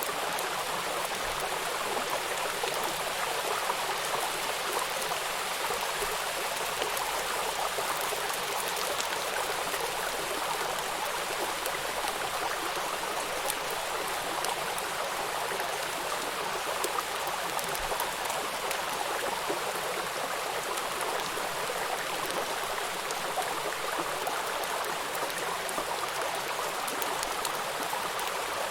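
A stream of running water flowing with a steady, even rush, unchanging throughout.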